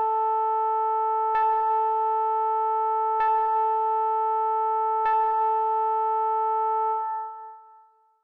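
Synthesized alarm tone of a homemade Emergency Alert System (EAS) alarm: one steady buzzy pitch with several overtones, held for about seven seconds with a faint click three times along the way, then fading out near the end.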